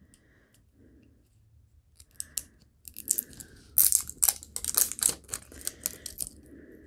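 Crisp plastic crackling and clicking as hands work at the cap and wrapping of a new Edding 5000 acrylic paint marker, trying to get it open. It starts about two seconds in and turns to a quick run of clicks after that.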